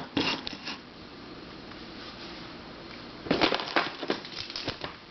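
Puzzles being handled: a few light clicks just at the start, then a cluster of clicks and clatter about three and a half seconds in, as pieces are picked up and set down.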